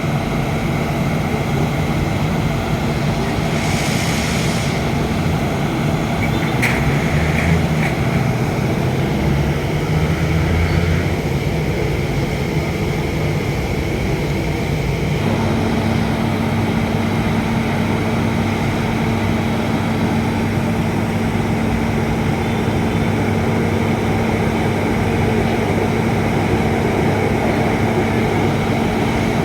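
Motor vehicle engine running steadily amid traffic noise, with a steady low hum that sets in about halfway through.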